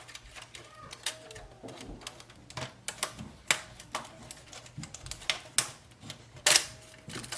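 Irregular sharp clicks and knocks of plastic parts and cable connectors being handled and unplugged inside an Epson WorkForce WF-2860 printer during disassembly. The loudest knock comes near the end.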